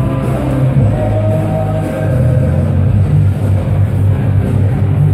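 Loud background music with a heavy, pulsing bass line and sustained melody tones.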